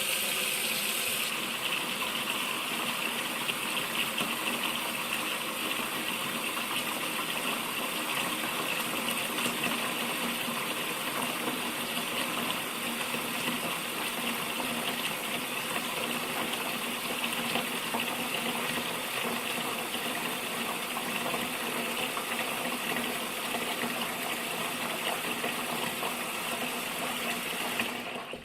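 Water gushing steadily from a spout in a strong, unbroken stream, cut off suddenly at the very end.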